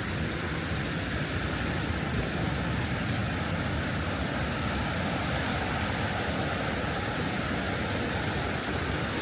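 Steady rushing of a waterfall and fast-flowing river water, an even hiss with no breaks.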